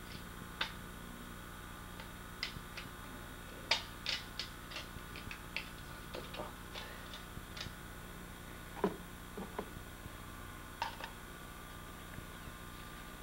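Irregular light clicks and ticks, a few at a time, over a steady low hum and hiss.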